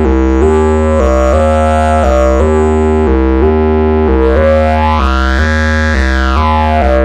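Kore 2 synth lead patch "Caved Voice" playing a repeating stepped note pattern, a note about every half second, while its Squelchy and Throat controls are turned by hand. Its tone sweeps up and back down between about four and seven seconds in.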